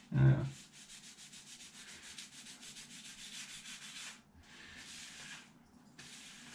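Paper towel damp with alcohol rubbed briskly back and forth on the skin of a forehead, scrubbing dried blood from a healing stitched cut, in quick, even strokes: one long bout, then two shorter ones after brief pauses. It opens with a brief low grunt, the loudest sound.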